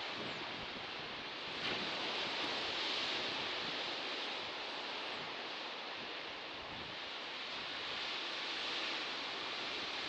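Ocean surf: a steady rushing wash of waves, growing a little brighter and louder just under two seconds in.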